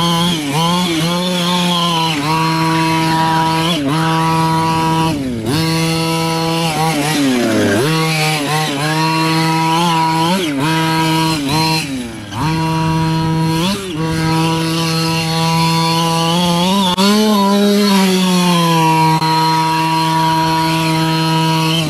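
Losi 5ive-T's 26cc two-stroke gas engine running at high revs. The throttle is let off and opened again several times, so the pitch drops briefly and climbs back. Near the end it rises a little higher, then settles.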